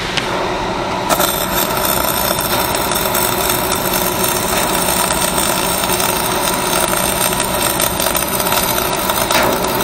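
Arc welding a stitch weld on structural steel: the arc strikes about a second in and crackles steadily, with a brief break near the end. The engine-driven welding generator runs underneath.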